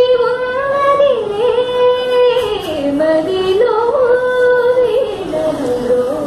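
A woman singing a slow melody with long held notes and ornamented, wavering turns, dipping lower a few times.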